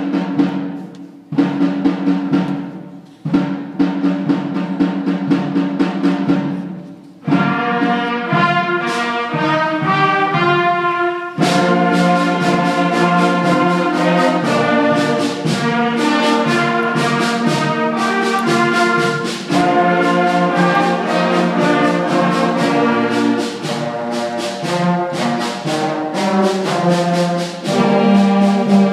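Sixth-grade school concert band playing. It opens with three long, low brass chords, each cut off. A higher melody enters about seven seconds in, and the full band of brass and woodwinds comes in about eleven seconds in.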